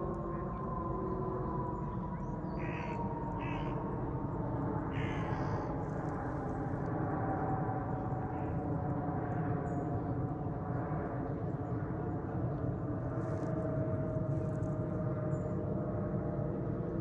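Airbus A380 jet engines rumbling overhead, with a whine that slides slowly down in pitch as the airliner passes. Crows caw a few times over it.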